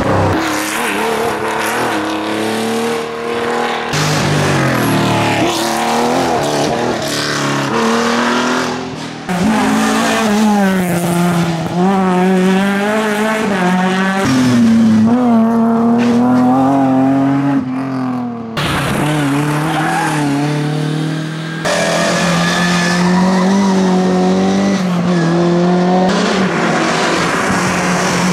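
Historic rally cars driven flat out on a special stage, engines revving high and dropping back through gear changes. Several separate car passes are cut together, each with its own engine note.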